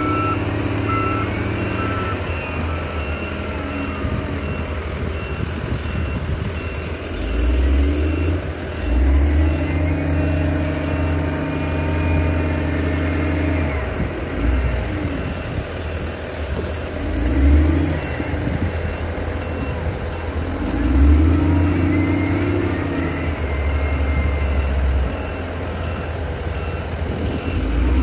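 Excavator's diesel engine running under working load, its pitch and loudness swelling and easing several times as the hydraulics move the arm, with a repeating electronic beep sounding throughout.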